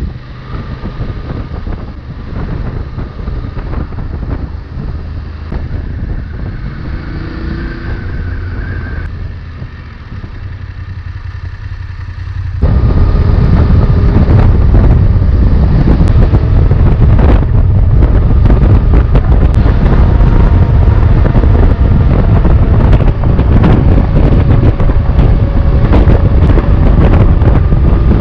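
BMW F 850 GS parallel-twin engine running at low speed in 3rd gear, then, about halfway through, abruptly much louder as it cruises at highway speed in 6th gear with heavy wind noise on the microphone.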